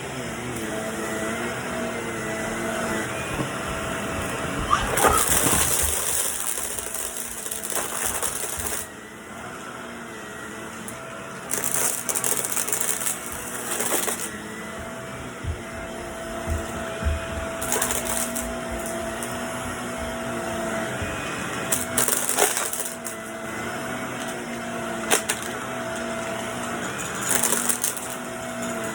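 Household vacuum cleaner running with a steady motor hum, broken every few seconds by louder hissing rushes of air.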